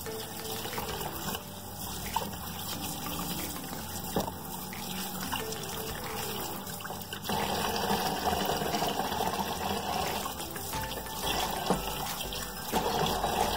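Tap water running into a plastic bowl in a steel sink while hands rub and splash smoked herring in the water to rinse the salt off. The running water gets louder about seven seconds in.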